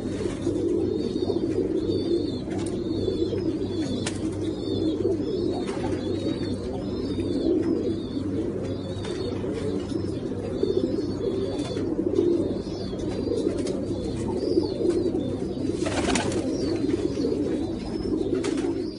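Domestic pigeons cooing in a steady low chorus, with short high chirps repeating above it and a few sharp clicks.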